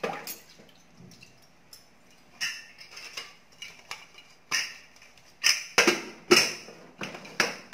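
Aluminium pressure cooker being closed: a string of sharp metallic clinks and knocks as the lid is handled and fitted to the pot, coming thickest and loudest a little past halfway.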